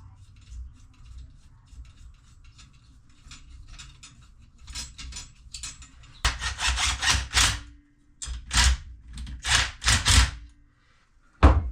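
Hand-tool work on the motor mount hardware. Faint clicking at first, then two runs of quick, loud rasping strokes, like a ratchet wrench or file worked back and forth, and a single sharp knock near the end.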